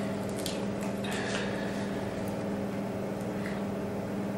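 A steady low hum, with a few faint light clicks and taps scattered through it.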